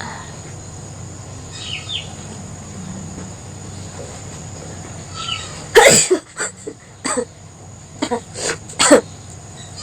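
A person sneezing, set off by tickling the nose with a thin stick: a run of about six short, loud bursts in quick succession, starting a little past halfway.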